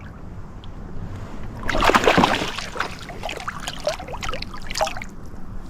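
Water splashing and sloshing, loudest in a run of sharp splashes from about two seconds in that lasts around three seconds.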